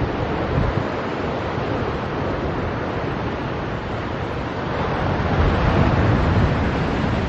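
Wind buffeting the microphone over the steady wash of ocean surf. The wind gusts stronger about five seconds in.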